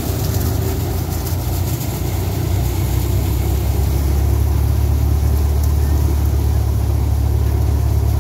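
Swaraj tractor's diesel engine running steadily under load, driving a straw thresher, with the thresher's steady rush of blown straw over the low engine hum. The hum grows louder a couple of seconds in, then holds.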